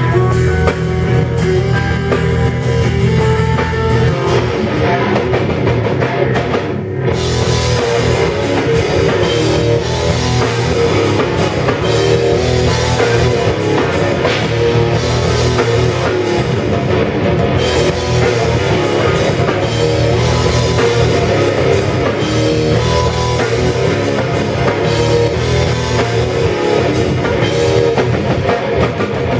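Live rock band playing: electric guitar, electric bass and a full drum kit together. About seven seconds in, the cymbals come in fully and the sound fills out.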